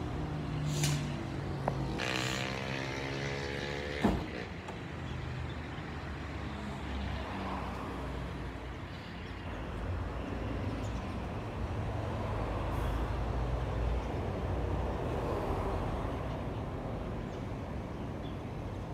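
A road vehicle running, with a hiss that sweeps in pitch between about two and four seconds in and ends in a sharp knock, then a steady low engine rumble.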